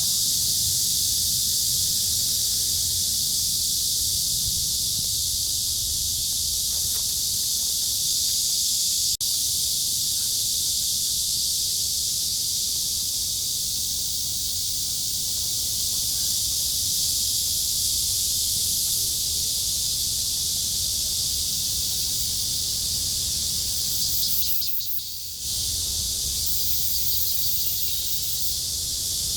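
Loud, steady high-pitched drone of a summer cicada chorus, with a low rumble underneath.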